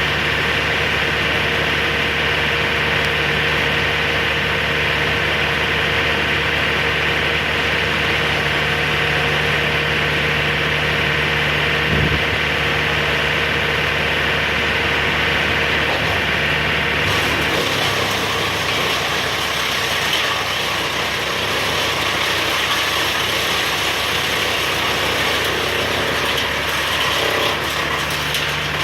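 An engine running steadily. A little over halfway through, its deep hum drops away and a higher, rougher engine sound takes over.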